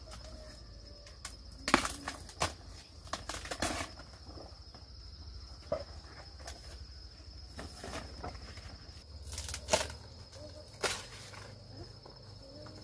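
Steady high insect drone, with scattered sharp knocks and clatters on top, the loudest about two seconds in and again near ten seconds.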